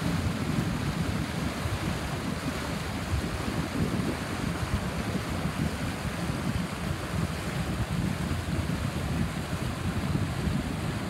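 Wind buffeting the microphone in a steady, gusty rumble, with the wash of water underneath.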